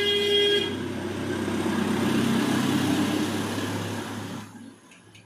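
Hand-held degaussing coil energised in front of a CRT television screen: a loud, steady mains hum and buzz that starts suddenly and dies away about four and a half seconds in. The coil is demagnetising the picture tube to clear its colour patches.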